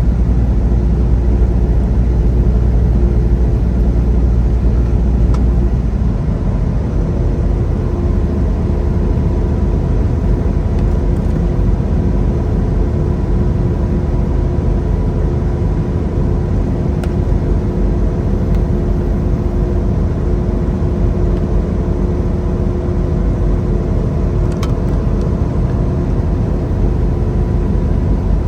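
Semi truck's engine and road noise heard from inside the cab while driving: a steady loud low drone with a faint steady whine above it. The deepest hum drops away about six seconds in.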